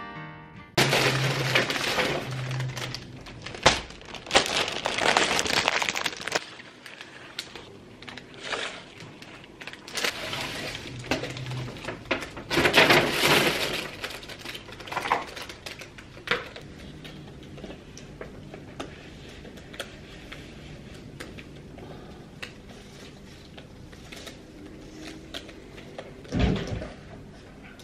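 Rustling and crinkling from a paper bag and potted ivy plants being handled, with scattered knocks. The handling then goes quieter, and near the end there is one dull thump as a pot is set down on top of a wooden wardrobe.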